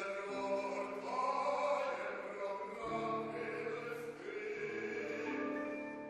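Mixed youth choir singing held chords in harmony, with low men's voices coming in about three seconds in.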